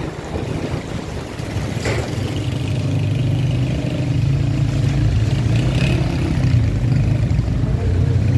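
Small motorcycle engine running close by, a steady low hum that grows louder over the first few seconds and then holds.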